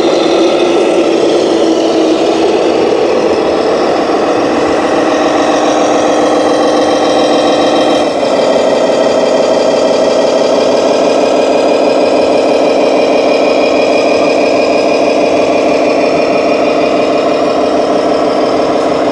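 Simulated diesel truck engine sound from an RC scale model truck's sound module: a steady idle that shifts in pitch about eight seconds in.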